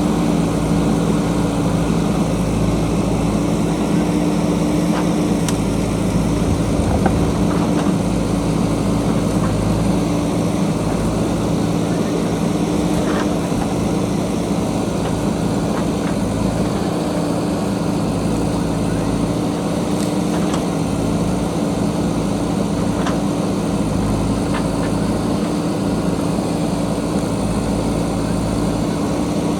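JCB backhoe loader's diesel engine running at a steady speed, a constant hum with a few faint clicks now and then.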